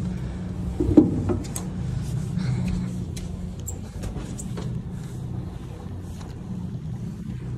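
Boat engine idling with a steady low hum, with a sharp knock about a second in and scattered light clicks.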